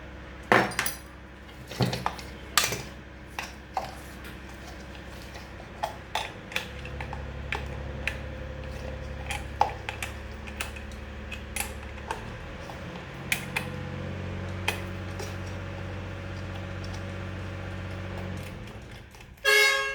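Hand tools clinking and knocking against the metal parts of a ceiling fan as its fasteners are loosened, in scattered irregular taps over a steady low hum. A short ringing sound comes near the end.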